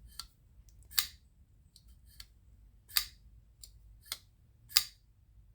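Petrified Fish PF959 folding knife being flicked open and dropped shut: a series of sharp clicks, four or five loud ones about a second apart with fainter ones between, as the blade snaps open and closes.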